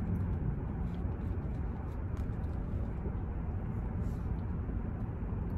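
Steady low background rumble with a few faint, short clicks over it.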